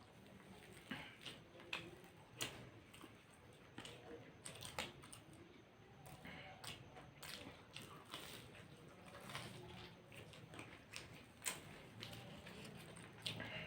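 People chewing and biting into fried snacks such as cutlets and samosas, with faint irregular sharp clicks of biting and chewing.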